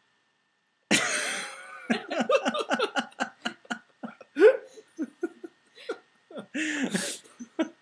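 A person laughing hard, starting suddenly about a second in with one loud burst, then a long run of short, rapid laughs.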